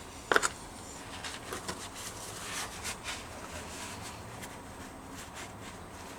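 Work on a differential seal: a sharp double knock about half a second in, then scattered light clicks and taps of hand tools and parts being handled.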